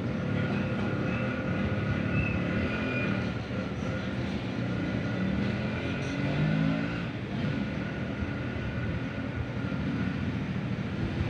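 Soundtrack of an animated video playing from a desktop computer's speakers and picked up across the room: a steady dense mix with a few held high tones and low notes that slide up and down.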